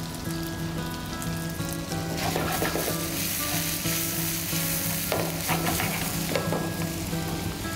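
Diced yellow squash and zucchini sizzling in hot oil in a stainless steel sauté pan. The pan is tossed about two seconds in and again about five seconds in, and the sizzle surges with each toss.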